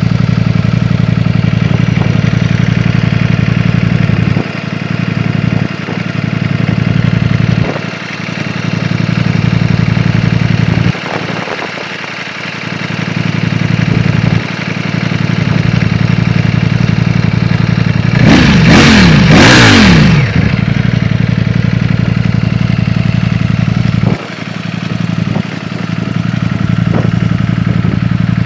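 Ducati Panigale V4's V4 engine idling steadily in neutral, with one sharp rev about two-thirds of the way through that falls back to idle.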